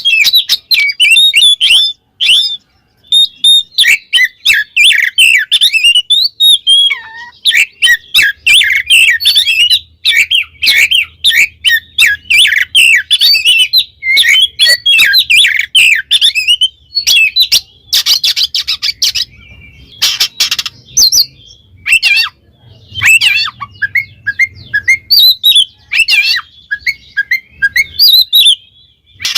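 Oriental magpie-robin (kacer) singing loudly, a rapid, varied run of whistled notes broken by short pauses, with harsher, scratchy chatter about two-thirds of the way through. It is full, loud song of the kind used to call out a rival and provoke other males.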